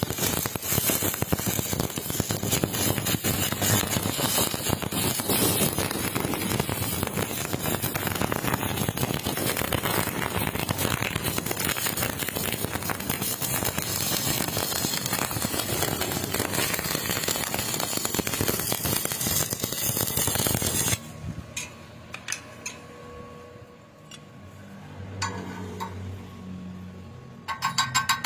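Stick (SMAW) welding arc crackling steadily and irregularly for about twenty seconds, then cutting out. After a few quieter seconds with scattered clicks, a fast, even metal tapping starts near the end.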